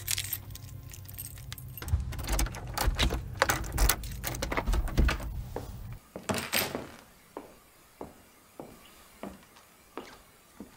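Keys jangling and rattling over a low rumble, which cuts off about six seconds in; then slow, even footsteps, about one every two-thirds of a second.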